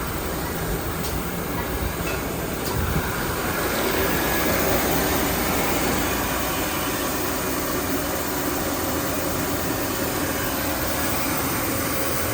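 Toilet roll band saw cutting machine running: a steady mechanical rumble and hiss, with a few faint clicks in the first three seconds.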